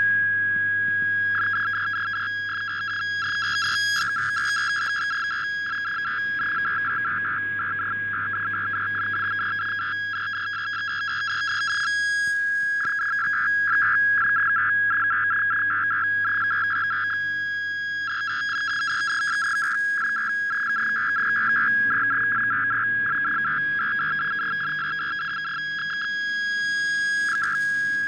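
HELL80 (Hellschreiber) digital-mode signal received over shortwave: a single tone keyed rapidly on and off into a stuttering buzz as it spells out text, over shortwave hiss, slowly swelling and fading.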